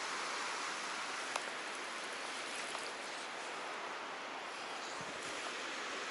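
Fast stream water rushing steadily through a rock channel, with a single sharp click about a second and a half in.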